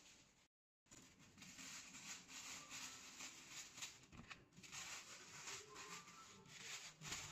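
Thin plastic carry bag rustling and crinkling in irregular bursts as it is handled, starting just under a second in after a brief dropout of all sound.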